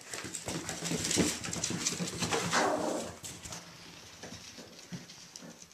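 Irish Jack Russell Terrier puppies play-fighting: scuffling and scrabbling with small puppy whines mixed in. It is busiest in the first three seconds, then quieter.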